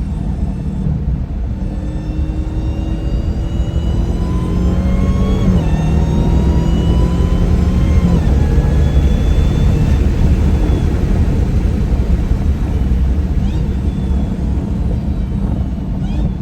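Supercharged 6.2-litre Hemi V8 of a 2020 Hellcat accelerating hard, its supercharger whine climbing in pitch and dropping at two quick upshifts, about five and a half and eight seconds in, then running on as a steady engine rumble. The whine is made louder by a newly fitted JLT Performance cold-air intake.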